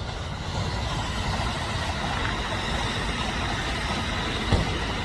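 Kintetsu electric train running, a steady rumble with a faint high whine, and one short knock near the end.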